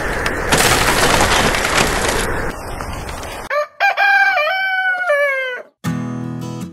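Steady hiss of rain, heavier for a second or so, that stops about three and a half seconds in and gives way to a rooster crowing one long cock-a-doodle-doo. Strummed acoustic guitar music starts near the end.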